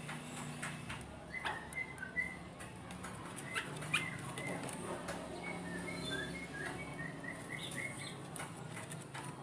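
Kutilang emas bulbul calling: short whistled notes scattered through the first half, then a quick series of short notes near the end, over a steady low hum with a few sharp clicks.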